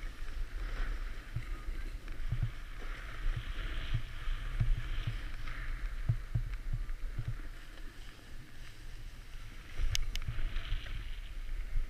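Edges hissing and scraping over packed, groomed snow as the camera-wearer slides downhill, with wind buffeting the microphone in low thumps. About ten seconds in there are two sharp clicks.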